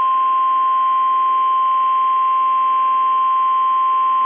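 NOAA Weather Radio warning alarm tone: a single steady high-pitched tone near 1,000 Hz, held unbroken and loud, over faint radio hiss. It signals that a warning message follows.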